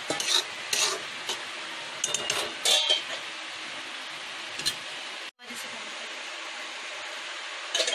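Steel spoon scraping and clinking against a steel kadai as thick upma is stirred, then a metallic clatter as a steel lid is set on the pan. After that a steady low hiss, which cuts out for an instant about five seconds in.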